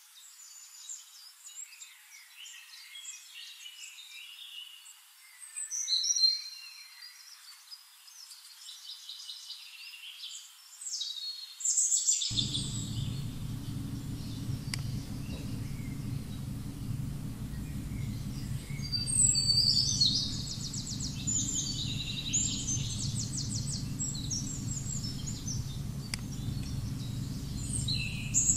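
Birds chirping and calling in many short, high notes, with a steady low hum coming in about twelve seconds in and running on beneath them.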